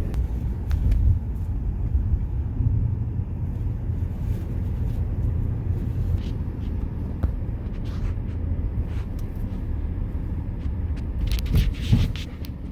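Wind buffeting the microphone: a low, gusting rumble, with a few light clicks near the end.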